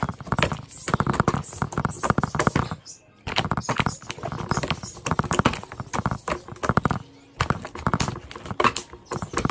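Hands squeezing and kneading a large mass of mixed slime, making quick runs of wet squelching and popping clicks with a couple of brief pauses.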